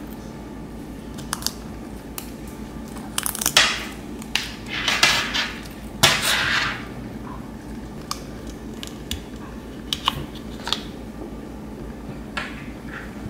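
Stainless-steel Milanese mesh watch band handled in the hands: scattered sharp clicks and short bursts of rustling, the loudest a few seconds in, over a steady low hum.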